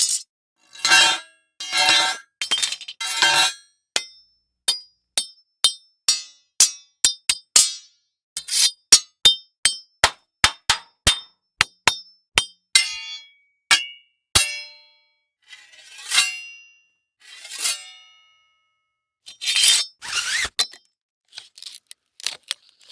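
A run of separate metal sound effects from a weapons sound library, each followed by a short silence. First come a few ringing clanks. Then a quick series of about twenty sharp metallic clinks and ticks, then several longer scraping, ringing metal sounds.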